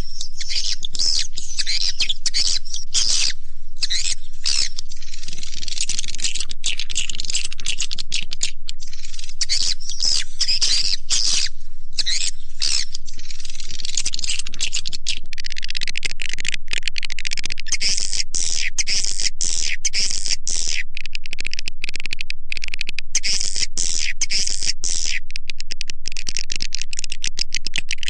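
Swiftlet lure-call recording: dense, continuous high-pitched twittering and chirping of edible-nest swiftlets, the sound played from swiftlet houses to draw the birds in to roost and nest. Near the end the chirps turn into a fast, even run.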